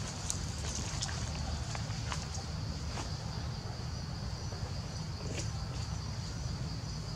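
Steady high-pitched drone of forest insects, with scattered crackles of footsteps on dry leaf litter and a steady low rumble underneath.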